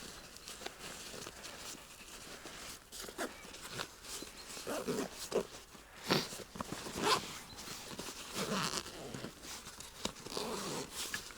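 A series of short animal calls, several in a row starting about four seconds in.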